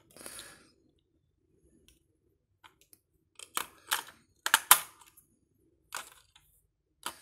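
AA batteries being pushed into a plastic toy's battery compartment: a short rustle, then sharp clicks and clacks as the cells knock against the plastic and snap into the spring contacts, a quick cluster about halfway through and two more single clicks near the end.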